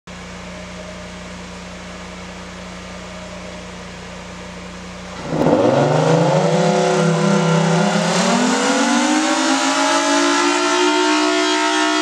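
A steady low hum, then about five seconds in a Federal Signal Thunderbolt 1000T civil-defense siren starts sounding loudly. Its wail starts low, climbs in pitch, levels off briefly, then rises again as it winds up. The uploader calls this unit sick.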